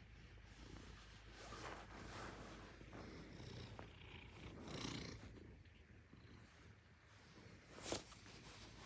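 Maine Coon cat purring softly close by, in slow swells with its breathing, and a short sharp click about eight seconds in.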